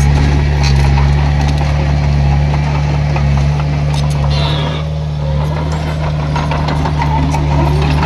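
Diesel engine of heavy earthmoving machinery running steadily, with scattered metallic clanks and clicks. A brief high squeal comes about four seconds in, and the sound drops slightly just after.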